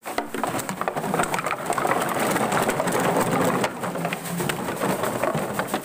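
Many empty plastic bottles tumbling out of sacks onto a concrete floor, a dense, continuous clatter of bottles knocking against each other and the ground.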